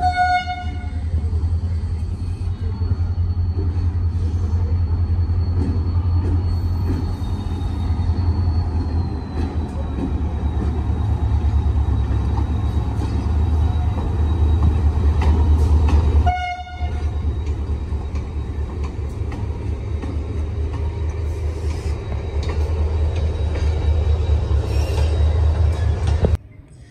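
Diesel locomotive running with a loud, steady low rumble as it hauls a short rake of passenger coaches through the station. A short horn note sounds right at the start and again about sixteen seconds in, and the sound cuts off abruptly near the end.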